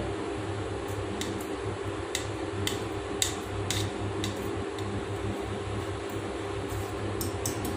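Wire whisk beating chocolate cake batter in a stainless steel bowl, its wires clicking against the metal now and then, over a steady low hum.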